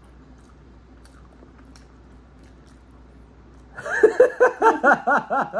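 A person laughing: a rapid run of loud 'ha-ha-ha' pulses, about five a second, starting about four seconds in.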